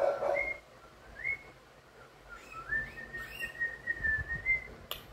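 Cockatiel whistling. It opens with a brief noisy burst, gives a couple of short rising whistle notes, then holds one long, slightly wavering whistle.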